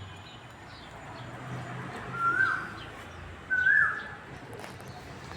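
A cuckoo calls loudly twice, about a second apart, each call a short note that steps up in pitch and then drops. Faint low pigeon cooing and a few small high chirps sound beneath it.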